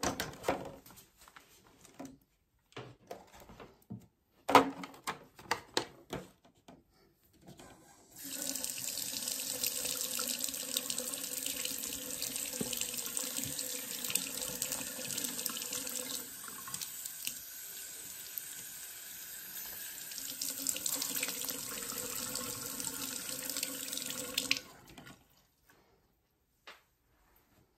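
A bathroom faucet runs steadily into the sink for about sixteen seconds, starting about eight seconds in and shut off abruptly near the end. Before it come handling sounds of cloth and a sharp knock.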